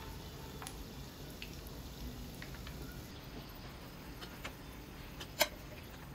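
Frozen chicken rolls deep-frying in a pan of oil on medium heat: quiet steady bubbling with scattered small pops from the oil, and one sharper pop about five seconds in.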